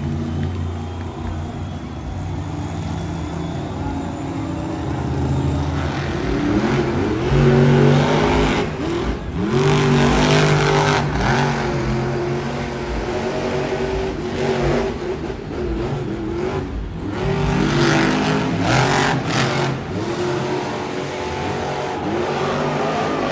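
Monster truck's supercharged V8 engine revving hard over and over, its pitch sweeping up and down in quick surges, louder from about six seconds in.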